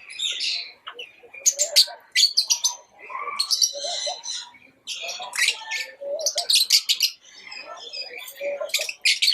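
Pet lovebirds chirping and chattering: a rapid, busy run of short, sharp, high chirps with only brief pauses between bursts.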